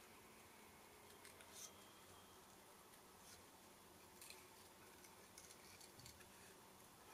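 Faint snips of paper scissors cutting cardstock, a handful of short scattered cuts over quiet room tone.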